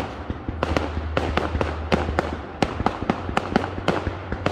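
Aerial fireworks going off: a rapid, irregular string of sharp bangs and pops, several a second, with a low steady rumble underneath.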